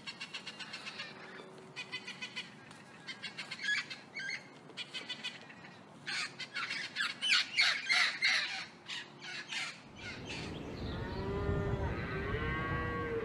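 Scarlet macaws squawking in rapid runs of harsh, raspy calls, loudest about six to ten seconds in. Near the end the calls give way to a low rumble with a few wavering pitched tones.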